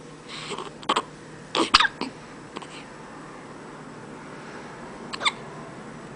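One-month-old baby hiccuping: short, sharp hiccups, several in quick succession in the first two or three seconds, then another about five seconds in.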